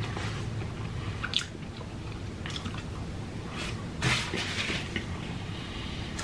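Close-miked chewing of a mouthful of cheeseburger: wet smacking and squishing mouth sounds, with a few louder smacks spread through.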